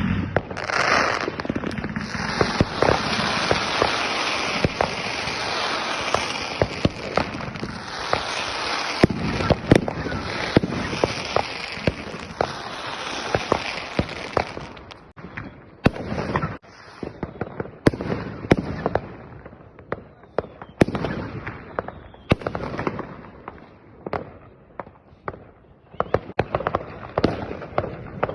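Fireworks and firecrackers going off: a dense, continuous crackle with sharp bangs for about the first half, then scattered single bangs and pops with quieter gaps between them.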